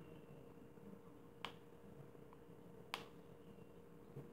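Near silence with two sharp clicks about a second and a half apart and a faint tick between them: a fingernail picking and snapping at the plastic wrapper of an LOL Surprise Pets ball as the layer resists peeling.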